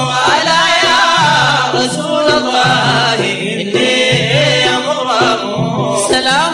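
Sudanese madeeh (Sufi praise song) sung in Arabic, with long wavering held notes over a repeating low accompaniment.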